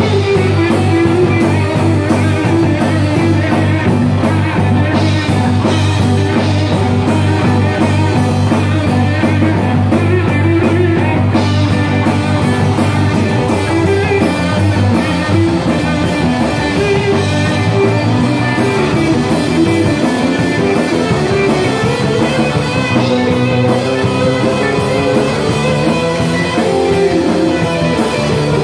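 Live rock band playing: electric guitar and electric bass over a drum kit keeping a steady cymbal beat.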